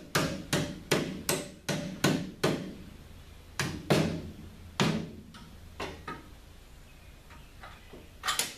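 Hammer blows on the sheet-metal panel behind the headlight bucket of a 1978 Datsun 280Z. A quick run of sharp strikes with a short ring, about two or three a second for the first couple of seconds, then scattered single blows that grow fainter, and a last pair near the end.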